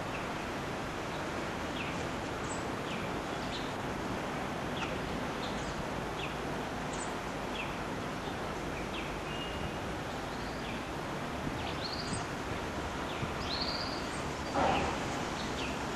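Small birds chirping: many short, high calls scattered over a steady background hiss, with a louder, fuller sound near the end.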